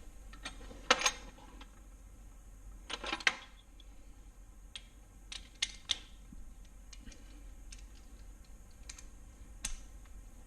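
Scattered sharp metallic clicks and clinks of hand tools and metal parts being handled during engine assembly, loudest about a second in and in a quick cluster around three seconds, with a few lighter ticks after.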